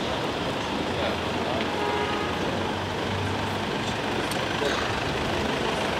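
Steady street noise from a large motor vehicle's engine running, with a low hum underneath.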